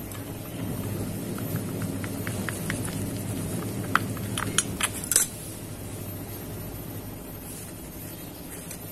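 Small metal clicks and clinks as pliers work the rear end cap off an angle grinder's motor housing: a run of light ticks, then a sharper cluster of clinks about four to five seconds in, over a steady low hum.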